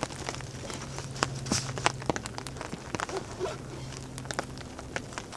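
Rain and meltwater drips tapping irregularly on a tarp, with a faint steady low hum underneath.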